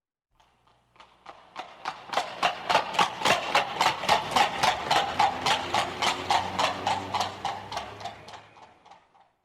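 A horse's hooves clip-clopping on a paved street in a steady run of sharp strikes, about three to four a second, growing louder after a second or so and fading away near the end.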